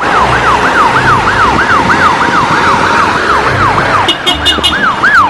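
Ambulance siren sounding a fast yelp: a rapid rise-and-fall wail repeating about three times a second. About four seconds in, a brief run of higher-pitched beeps joins it.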